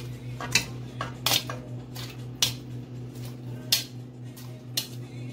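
Metal kitchen tongs clinking against a pressure cooker and a pot lid as pieces of boiled beef are picked up and dropped in: about eight sharp clinks at irregular intervals, over a steady low hum.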